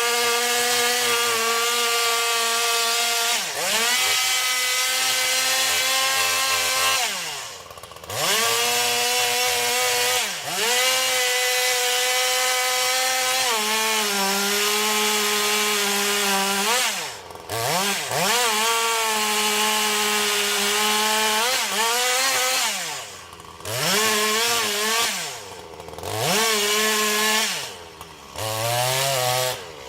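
Long-bar two-stroke chainsaw running at high revs while cutting through wood. About seven times the throttle is let off and the engine sags to a low pitch, then revs straight back up.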